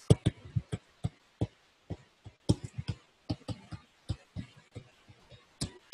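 A stylus tapping and scratching on a tablet screen while handwriting: irregular sharp clicks, about three or four a second, as each pen stroke lands and lifts.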